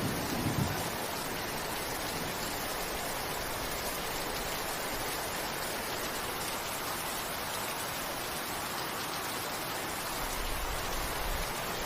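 Steady rain falling as an even hiss. The tail of a low thunder rumble dies away in the first second, and a faint low rumble returns near the end.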